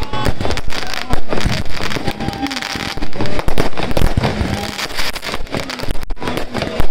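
Aerial firework shells bursting overhead one after another, a dense, continuous run of sharp bangs and crackling.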